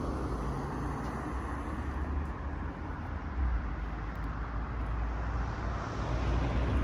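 Steady road traffic noise: a continuous low rumble with no distinct events.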